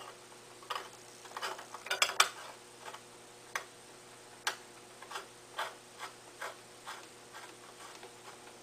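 Light, irregular metal clicks and clinks as a screw is threaded by hand into the muffler of a Stihl BG 86 leaf blower, with a quick cluster about two seconds in and single clicks every second or so after.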